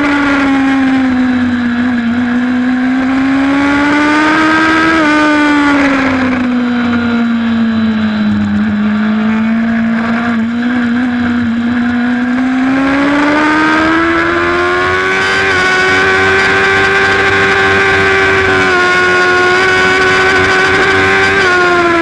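Racing motorcycle's engine heard onboard at high revs through long corners. The note dips suddenly about five seconds in and sags slowly to its lowest about halfway through, then climbs and holds steady and high to the end.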